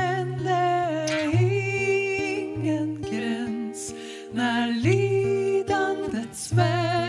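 Two women singing a slow Swedish worship song together, with long held notes and vibrato, accompanied by a fingerpicked acoustic guitar.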